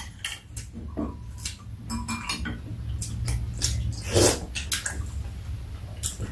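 Metal spoons clicking and scraping against ceramic bowls during a meal, with a few short ringing clinks and a louder, longer noisy sound about four seconds in, over a steady low hum.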